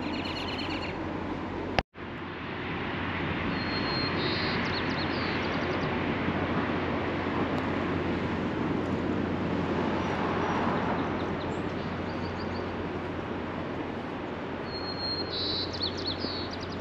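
Outdoor traffic noise that swells from about three seconds in and eases after about eleven, as a vehicle passes, over a steady low hum. Short bird chirps come twice. The sound cuts out for an instant about two seconds in.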